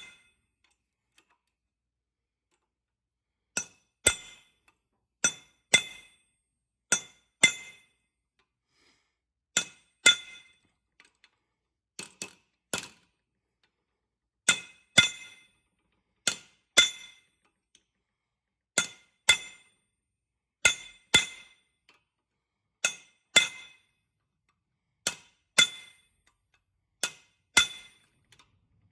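Hammer striking a steel rivet-setting punch, whose concave tip peens the head of a rivet fastening a section onto a McCormick 27V sickle mower blade. Sharp, ringing metal blows, mostly in quick pairs every second or two, beginning a few seconds in.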